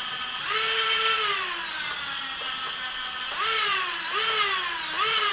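YKS MX2204 2300KV brushless quadcopter motors spinning without propellers. A whine rises about half a second in, holds briefly and then slowly falls away, followed by three quick throttle blips near the end, each rising sharply and gliding back down. The spool-up sounds still a little slow, which the owner puts down to the ESCs needing recalibration.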